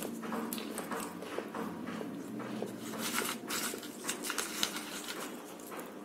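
Close-up crunchy chewing of papdi gathiya, a crisp fried gram-flour snack, with a run of sharp crackles. Partway through, crisp pieces rattle and crackle on the plate as another one is picked up.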